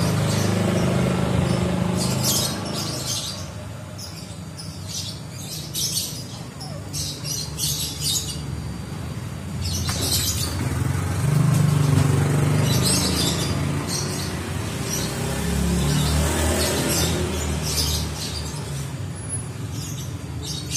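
A low engine hum that swells and fades a few times, with short high-pitched chirps scattered through.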